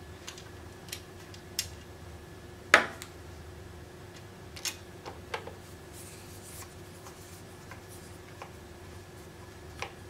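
Scattered small clicks and taps of steel screws and a screwdriver against the sheet-metal case of a security-camera DVR as screws are set and driven into its underside to hold a hard drive, with one sharper knock about three seconds in. A faint steady hum lies beneath.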